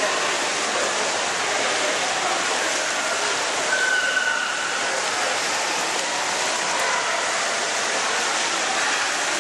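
Steady rushing and splashing of pool water in an echoing indoor pool hall, with a brief faint tone about four seconds in.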